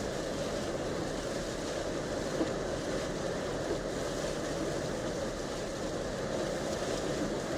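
A 2014 Jeep Grand Cherokee driving on a snow-covered road: a steady noise of tires on snow and engine running.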